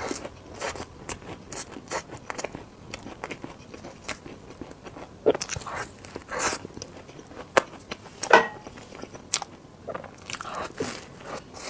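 Close-miked eating sounds: bites and chewing of food, with many short sticky mouth clicks and a few louder bites about five, six and a half and eight seconds in.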